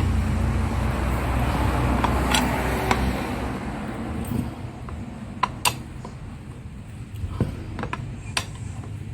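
A handful of sharp metal clinks and taps from parts and tools being handled, over a low rumble that fades after about three seconds.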